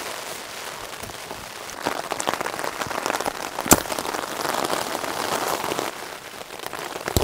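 Rain pattering on a nylon tent flysheet, heard from inside the tent, with tent fabric rustling and crackling for a few seconds around the middle. A single sharp click comes about halfway through.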